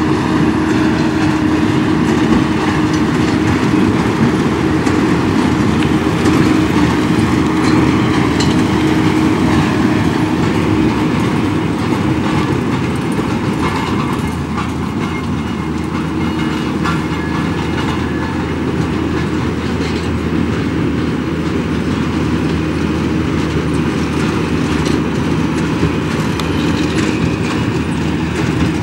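Fendt 818 tractor pulling a Claas Quadrant 2200 large square baler while baling hay: a steady engine drone under load with the baler's rhythmic mechanical clatter. The engine hum drops back a little about halfway through and returns near the end.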